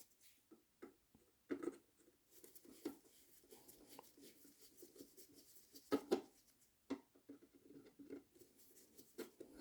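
Faint, scattered clicks and light scrapes of a flat-head screwdriver and plastic parts as a motorcycle headlight's front case is worked off.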